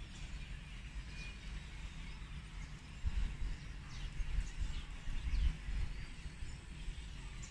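Gusty wind buffeting the microphone in low rumbles, with short, high, falling bird chirps scattered throughout.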